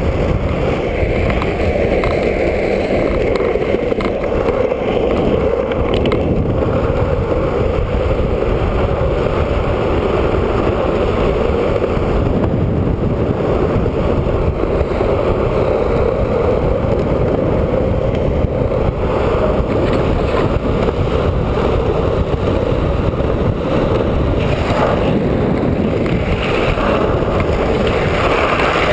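Longboard's urethane wheels (Plasma B+ 78a) rolling fast downhill on rough asphalt: a loud, steady rumble with no letup.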